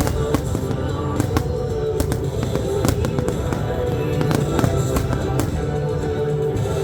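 Fireworks bursting with sharp cracks, roughly one a second at irregular intervals, over loud recorded music.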